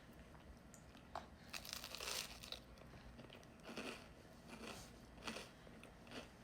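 Biting into and chewing buttered toast: a few soft, irregular crunches, the loudest about two seconds in.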